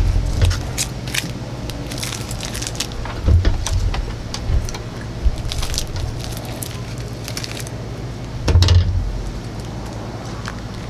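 Plastic freezie ice-pop wrapper being handled and crinkled: scattered small clicks and crackles, with a few low thumps, over a steady low hum.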